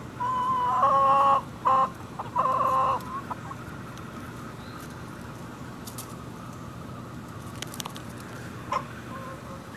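Chickens calling: three loud, drawn-out calls in the first three seconds, the first about a second long, the second short and the third about half a second, followed by quieter clucking and a few sharp light clicks.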